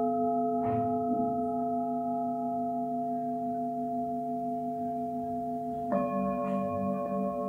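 Singing bowls ringing, several long overlapping tones sustained together. About six seconds in another bowl is struck, adding new tones, with a slow wavering beat in its lowest one.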